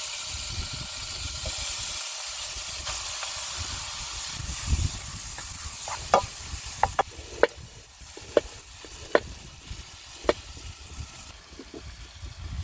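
Food sizzling in a frying pan, loud for the first few seconds and then quieter, followed by about half a dozen sharp clinks spaced roughly a second apart.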